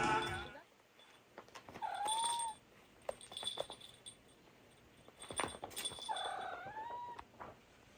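Two short animal calls a few seconds apart, each rising and then falling in pitch, with a few faint clicks between them.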